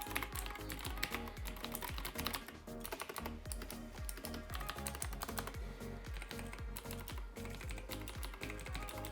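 Fast, continuous typing on a mechanical keyboard fitted with Razer PBT doubleshot keycaps: a dense patter of key clacks, their tone shaped by the thick PBT plastic of the caps.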